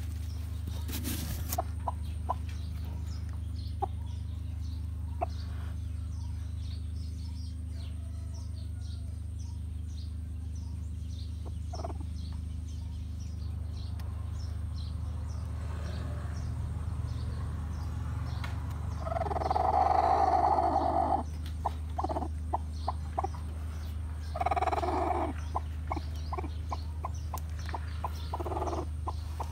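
Broody hen sitting on eggs in a nest box, giving short soft clucks, with a louder call of about two seconds some twenty seconds in and a shorter one about five seconds later.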